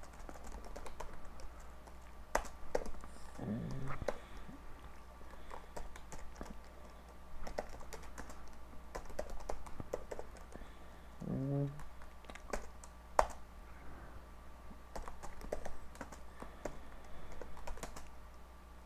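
Typing on a computer keyboard: irregular key clicks in short runs, with one sharper click about two-thirds of the way in.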